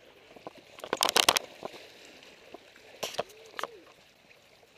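A large jack crevalle thrashing in shallow water and splashing. There is a loud burst of splashing about a second in, and two shorter splashes around three seconds in.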